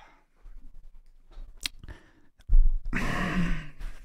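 A man's stifled, breathy laugh into a close microphone, about two and a half seconds in, after a single sharp click.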